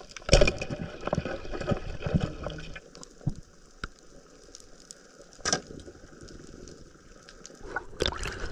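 Cooking fire crackling with scattered pops, and a few louder knocks, the loudest just after the start.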